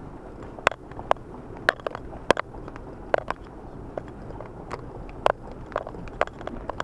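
Car moving slowly over a snowy, muddy dirt track, heard from inside the cabin: a low steady rumble with sharp, irregular ticks and knocks on the car body, about two a second.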